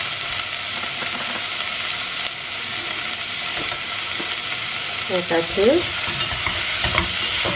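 Chopped vegetables sizzling steadily in hot oil and ghee in a pot. Near the end, a wooden spatula stirs them and knocks a few times against the pot.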